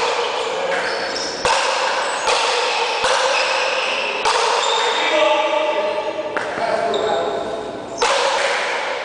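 A rally of pelota paleta: a rubber ball is struck hard by wooden paletas and rebounds off the frontón wall. There are about six sharp cracks in nine seconds, each ringing on in the echoing enclosed court, with voices in the background.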